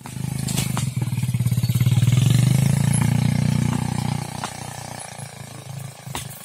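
A small engine running with a low, rapidly pulsing hum that swells in the first few seconds and fades after about four seconds.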